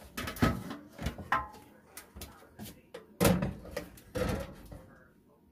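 Kitchen handling noises: a string of sharp knocks and clatters as a metal roasting pan is moved off the counter, the loudest about half a second and three seconds in.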